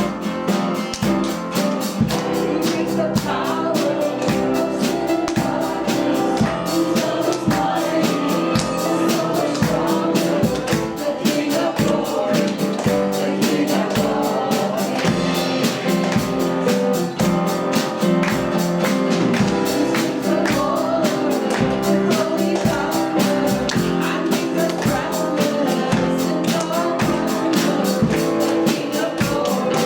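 Live worship music: a band with a steady beat, with singing over it.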